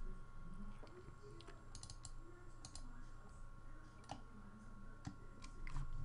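Faint, scattered clicks of a computer mouse and keyboard, a few a second, over a low steady hum.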